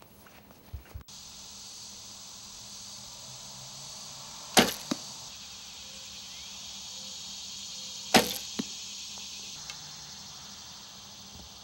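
Two shots from a traditional recurve bow, about three and a half seconds apart: each a sharp snap of the string on release, followed about a third of a second later by a fainter thud of the arrow striking a foam 3D target. A steady high hiss runs underneath.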